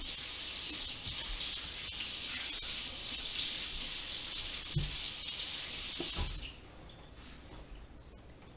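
Water running steadily from a faucet as hands are washed, shut off about six seconds in; a few faint knocks follow.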